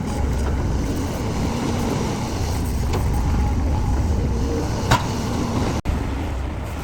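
Heavy construction machine's diesel engine running with a steady low rumble, with one sharp knock about five seconds in.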